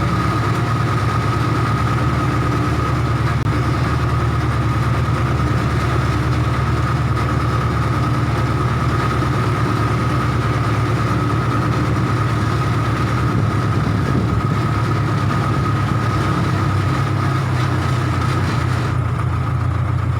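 Case 580K backhoe loader's diesel engine running steadily, a constant low drone with a thin, steady high whine over it.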